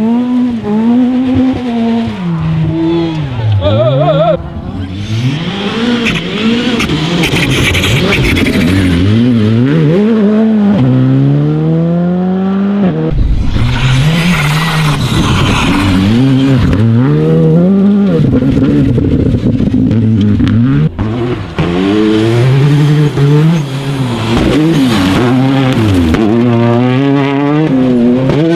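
Rally cars on a gravel stage, one after another (Škoda Fabia and Citroën DS3 rally cars): engines revving hard, their pitch climbing and dropping with each gear change and lift through the corners, with gravel sprayed by the tyres.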